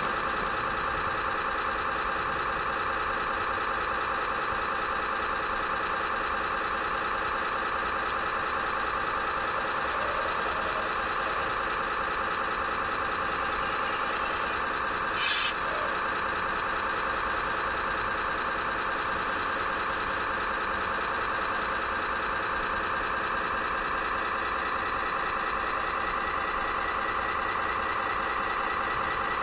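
Radio-controlled model construction machinery running: a steady mechanical whine made of several constant tones. A higher whine cuts in and out through the middle and near the end, and there is one short clatter about halfway through.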